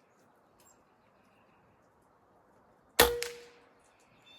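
Benjamin Armada PCP air rifle fitted with a moderator, fired once about three seconds in: a single sharp report followed by a brief metallic ring that fades out.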